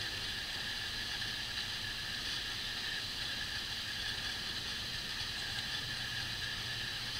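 Steady outdoor background hiss with a constant faint high hum; no distinct event.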